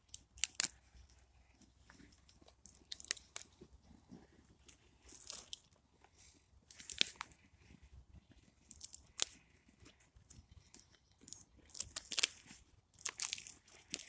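Wooden sticks and branches snapped by hand, a sharp crack every two seconds or so, the twigs breaking into pieces for the fire.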